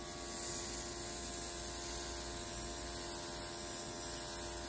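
Airbrush spraying metallic gold colour: a steady hiss of air over the constant hum of its small electric compressor.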